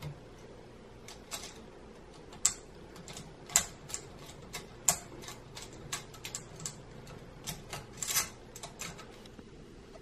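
Irregular small clicks and taps from handling a wall dimmer switch as its green ground wire is fitted under the ground screw, with a screwdriver set against the switch's screw. A cluster of clicks comes about eight seconds in.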